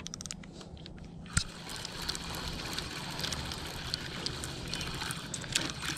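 Spinning reel being cranked to wind in line after a missed bite, a steady running sound scattered with small ticks. Quick clicks at the start and one sharp click about a second and a half in.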